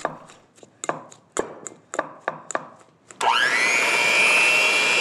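Short clicking glugs as milk is poured from a glass bottle into a glass bowl. About three seconds in, an electric hand mixer switches on: its motor whine sweeps up quickly and then holds steady as the beaters whip mashed sweet potato.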